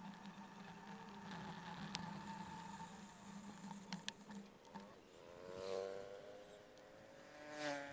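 Motor vehicles passing on a road, heard in sped-up footage: their engine notes swell and glide in pitch, twice in the second half, the louder pass near the end. Under them runs a steady low hum, with a few scattered clicks.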